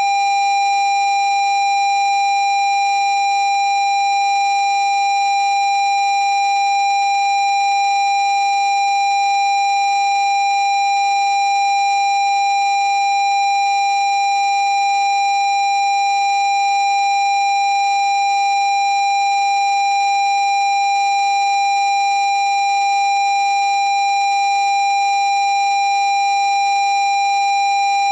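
Low-pitched parking-sensor warning tone sounding as one steady, unbroken beep with no gaps. This is the solid tone that signals an obstacle at the nearest distance.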